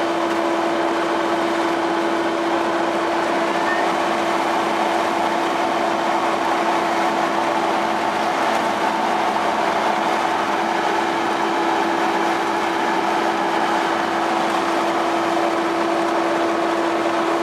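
Steady machinery drone aboard a purse-seine fishing vessel, its engine and net-hauling gear running without a break, with a constant hum at one pitch above an even noise.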